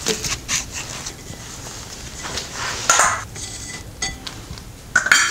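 Lug nuts being undone and lifted off a steel wheel with a socket wrench: scattered metal clinks and clatter, with a sharper clink about three seconds in and another near the end.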